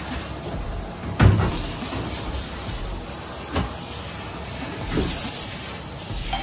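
Water spraying steadily from a handheld grooming-tub sprayer onto a wet dog's coat in a stainless-steel tub. A loud thump comes about a second in, and two lighter knocks follow later.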